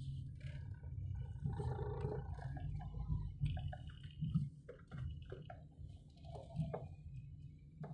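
Low steady rumble of a car's engine and tyres at low speed, heard from inside the cabin, with scattered faint clicks and creaks on top.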